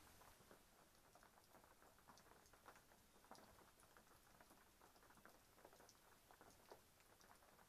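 Faint, irregular patter of raindrops, many small ticks in quick random succession.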